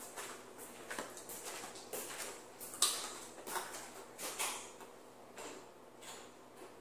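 Eating sounds from fried food taken by hand out of a paper-lined takeout container: irregular crinkling of paper and crunching, with the sharpest crackle a little under three seconds in and fewer sounds near the end.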